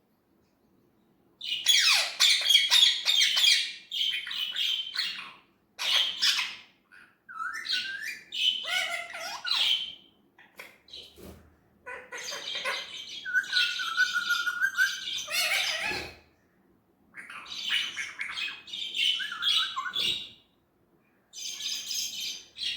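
Pet Indian ringneck parrot giving harsh squawks and chirps in repeated bursts with short breaks, starting about a second and a half in, mixed with a few gliding whistled notes and one held whistle midway.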